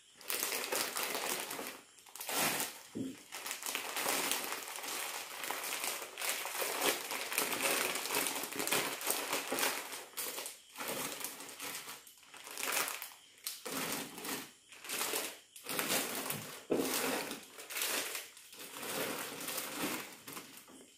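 Sealed plastic bags of cooked jackfruit crinkling as they are handled and stacked into a freezer compartment. The rustling comes in irregular bursts with short pauses between them.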